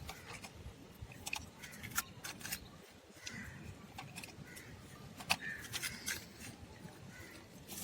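Scattered light clicks and scrapes of a plastic Bruder toy backhoe being worked in sand, one sharp click every second or so.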